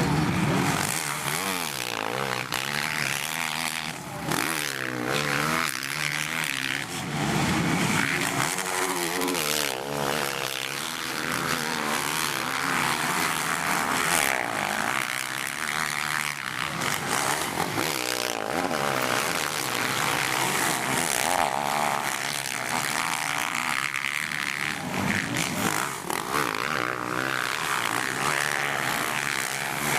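Several motocross bikes racing round the track, their engines revving up and down through the gears without a break as they pass.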